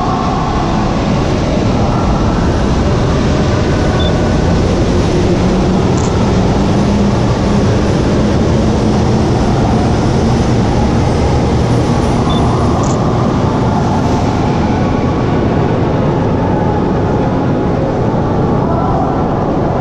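Subway train pulling out of the station along the platform: a steady, loud rumble of the train running.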